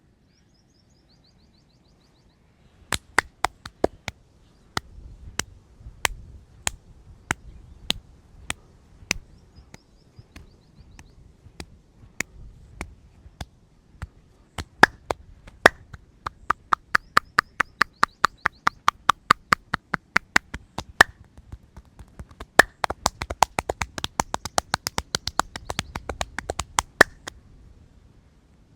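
Sharp hand strikes and claps of a percussive head massage. Single slaps come at uneven intervals at first, then quicken into fast rhythmic runs of several strikes a second.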